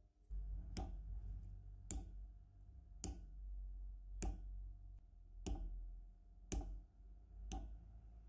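Hammer tapping a brass oil-lamp ring against the steel anvil of a bench vise: seven sharp, evenly paced strikes about one a second, over a low steady rumble.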